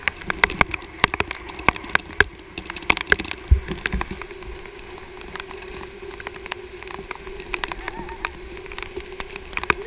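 Whitewater rapids rushing, with many sharp clicks and knocks over it, densest in the first few seconds, and a steady hum running through.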